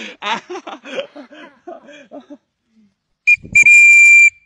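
A loud, steady, high-pitched whistle blast: a short pip, then a single held blast of under a second that cuts off abruptly.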